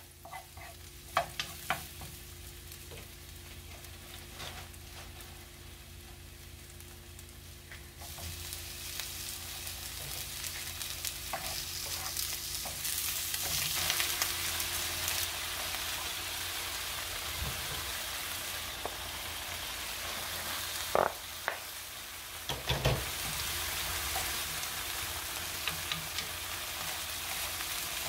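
Garlic slices and ground meat sizzling in oil in a nonstick frying pan while a wooden spatula stirs them. The sizzle grows louder partway through, and there are a few sharp taps of the spatula against the pan.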